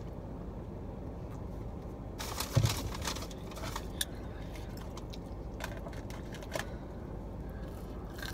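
Handling noises: a burst of clicks and rustling with a dull thump about two to three seconds in, as a plastic drink tumbler is put down and a cardboard takeout box handled, then a few light clicks. A steady low hum runs underneath.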